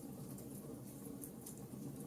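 Wood fire crackling in a fireplace: scattered small pops and snaps over a soft, steady rushing.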